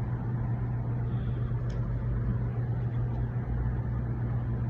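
A steady low background hum, with a faint click about two seconds in.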